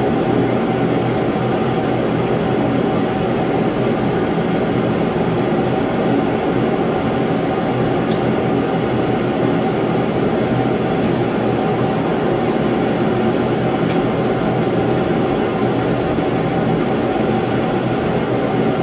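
Propane shop heater running with a loud, steady, even rushing noise. A couple of faint clicks sound about eight and fourteen seconds in.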